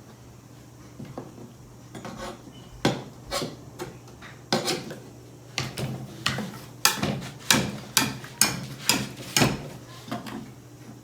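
Hard toy pieces knocking and clattering together: scattered knocks, then a quicker run of louder taps, about two a second, in the second half.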